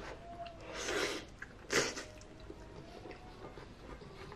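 A man slurping spaghetti in meat sauce, with two hissing slurps about one and two seconds in, the second short and sharper. Soft chewing follows.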